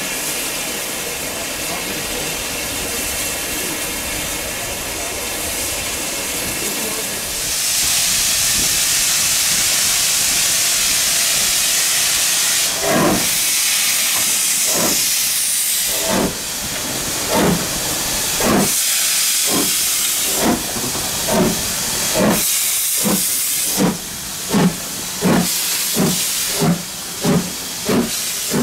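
LMS Ivatt Class 4 2-6-0 steam locomotive starting a passenger train. Steam hisses loudly from its open cylinder drain cocks, and about halfway through the exhaust chuffs begin: slow at first, then quicker and quicker as it gathers speed.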